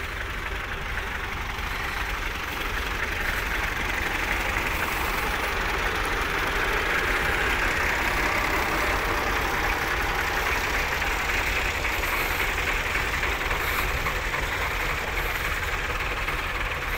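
Several farm tractors' diesel engines, a Ford among them, running together under load as they haul a heavy load in tandem over sand. A steady engine noise that grows a little louder a few seconds in.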